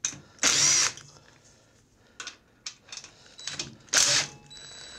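Cordless drill-driver spinning out small 8 mm bolts in two short bursts, about a second in and again about four seconds in. Small metallic clicks of the tool and bolts fall between them.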